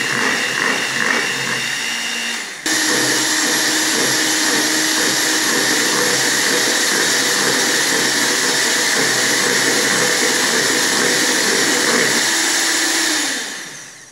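Electric hand mixer running, its beaters whipping eggs and margarine together into a cake batter. About two and a half seconds in it jumps suddenly louder and stays steady, then winds down and stops near the end.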